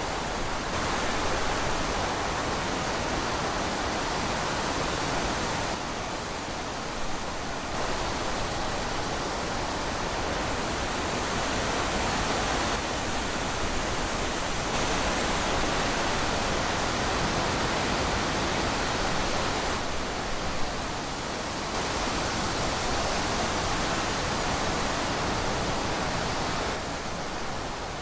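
Steady rushing wind, an even hiss that swells and eases every few seconds.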